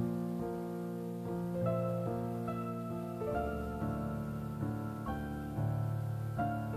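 Background piano music: a slow melody of held notes, changing about once or twice a second.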